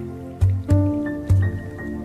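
Meditative instrumental music: three deep struck notes in the first second and a half ring on over long held tones, with small drip-like plinks.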